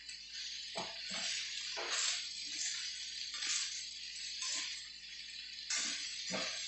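Green beans, carrots and chicken sizzling in a wok while a spatula tosses them, with repeated scrapes and clatters against the wok every second or so.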